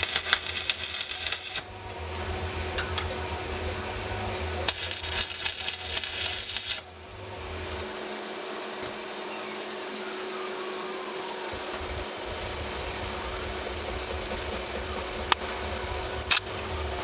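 Stick (arc) welding: the electrode crackling and sizzling in two bursts, about a second and a half at the start and about two seconds in the middle, over a steady hum. Two sharp clicks near the end.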